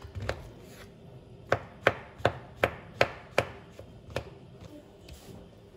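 Kitchen knife chopping mushrooms on a plastic cutting board. A quick run of about six sharp knocks of the blade on the board, roughly two or three a second, with a few single cuts before and after it.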